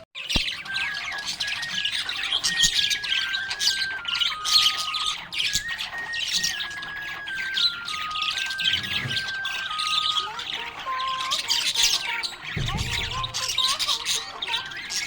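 Budgerigars chirping and squawking continuously in fast, busy chatter, over a background melody of steady held notes stepping up and down.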